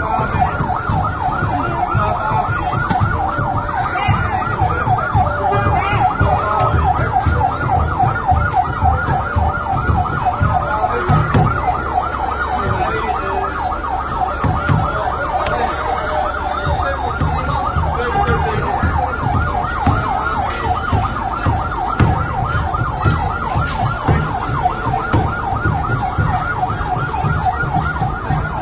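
Fire truck's electronic siren sounding a fast yelp, its pitch sweeping up and down several times a second without a break, over a low rumble.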